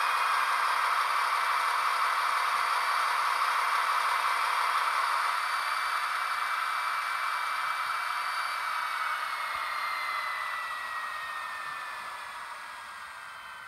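A Märklin H0 V160 model locomotive with an ESU LokSound V4.0 sound decoder, running: a hissy diesel sound from its small speaker with a thin whine that falls slowly in pitch. The whole sound fades over the last few seconds.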